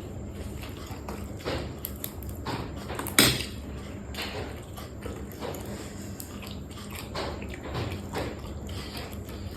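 A person chewing and biting into a mouthful of spicy seafood papaya salad, with many short crunches and a sharper, louder one about three seconds in.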